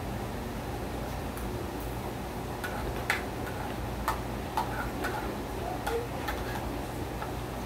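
A metal utensil clicking and scraping against a plate while eating: a string of irregular light clicks, the sharpest about three seconds in, over a steady low hum.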